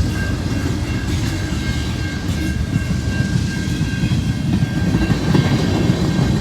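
A CN mixed freight train rolling past, with a steady heavy rumble and wheel clatter on the rails. Faint thin high tones ring above it.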